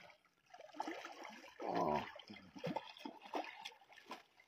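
Hooked common carp thrashing and splashing at the water's surface as they are dragged in to the shore on a handline, in an irregular run of splashes. One louder, pitched sound comes about two seconds in.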